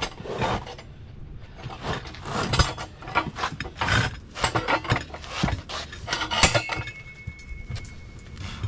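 Steel crowbar clanking and scraping against a steel wheel rim while prying a stuck inner tire bead loose: a string of irregular metallic knocks, with one clank near the end ringing on for about two seconds.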